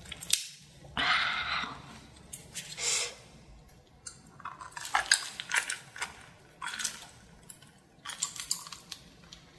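Wet, sticky eating sounds as a whole giant octopus coated in thick spicy sauce is squeezed in gloved hands and bitten into and chewed, in irregular bursts a second or two apart.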